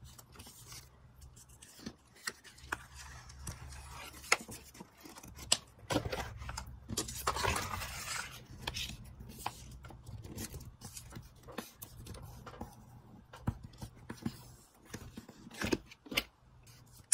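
Cardstock being handled and slid on a cutting mat: paper rustling and scraping with scattered light taps and clicks. The longest rustling scrape comes about seven seconds in.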